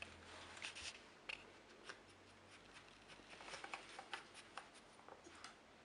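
Faint, scattered light clicks and scrapes: a dog nosing and nudging the plastic pegs and covers of a Trixie strategy game board, searching for hidden treats.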